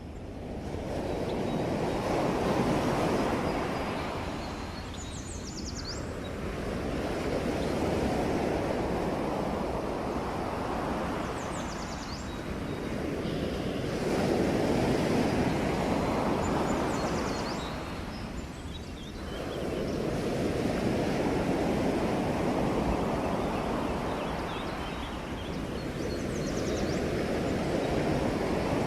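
Ocean waves breaking on the shore, the surf swelling and ebbing every five to seven seconds. A few faint, short high chirps sound over it.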